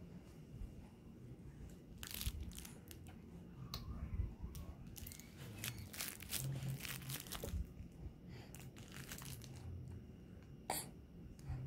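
Soft, irregular crinkling and rustling of something being handled, with a sharper crackle near the end.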